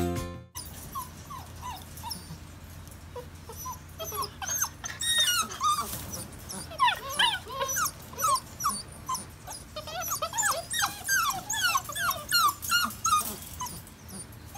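A litter of seven-week-old puppies whimpering and whining, many short high-pitched cries overlapping. The cries are sparse at first and grow much busier from about five seconds in.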